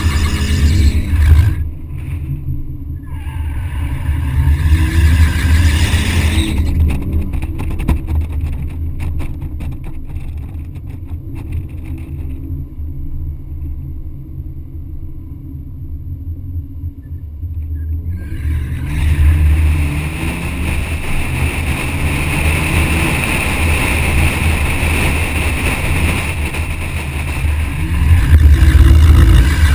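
BMW 130i's 3.0-litre inline-six engine revving hard, the revs climbing and falling as the car drifts, heard from a camera on the outside of the car with wind on the microphone. It eases off through the middle, then pulls hard again with a steady high screech of tyre squeal over the later part.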